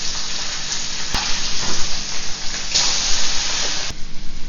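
Small fish sizzling and crackling as they fry in hot coconut oil in a small wok. The sizzle swells louder near the end, then falls away suddenly.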